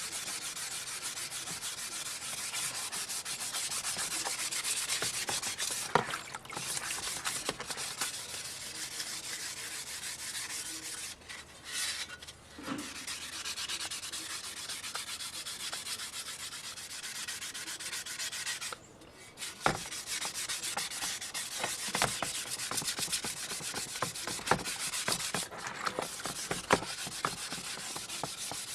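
Sandpaper scrubbing over an aluminum sewing-machine cover by hand, a steady scratchy rubbing that pauses briefly a few times.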